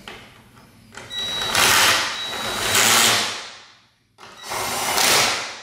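Cordless drill-driver run twice, each time spinning up and then winding down, as it drives the 10 mm screws of the hood latch tight.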